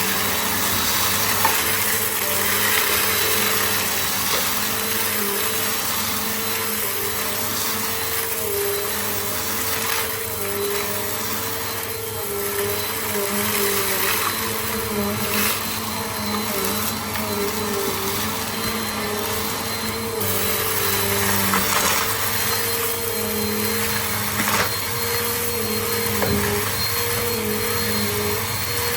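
Bissell CleanView compact vacuum cleaner running continuously, its motor hum wavering slightly in pitch, with a few brief clicks.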